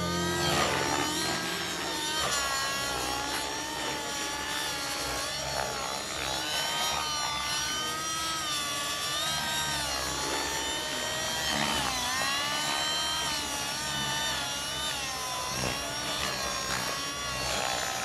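Century Radikal N640 RC helicopter's OS 55 two-stroke nitro engine and rotor blades running at flight speed, the engine note rising and falling repeatedly as it flies 3D manoeuvres.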